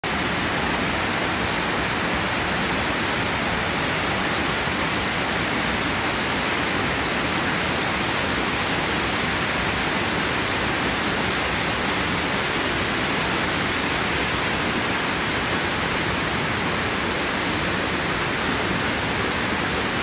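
Rushing water of a rocky stream below a waterfall: a steady, even rush that does not change.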